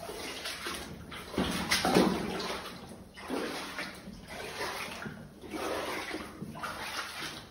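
Footsteps squelching and sloshing through mud and shallow water on a mine tunnel floor, a step roughly every half second to second, the loudest about two seconds in.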